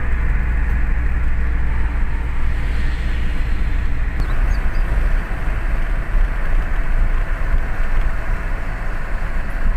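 Steady rumble of a car driving, with engine and road noise heard from inside the cabin.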